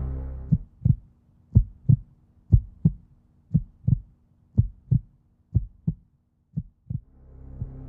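Heartbeat sound effect: paired lub-dub thumps about once a second, seven beats in all. A low droning hum fades out at the start and swells back in near the end.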